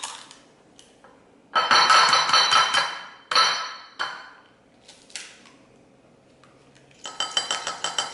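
Eggs tapped and broken against a ceramic bowl, with sharp, ringing clinks, then a fork beating the eggs in the bowl, clinking rapidly against its sides near the end.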